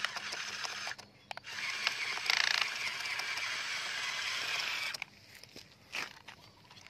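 Stacked plastic toy dump trucks rolled over gravelly dirt: a dense, ratchet-like rattling and grinding of plastic wheels and parts. It breaks off briefly about a second in, runs on for about three more seconds, then stops, leaving a few scattered clicks.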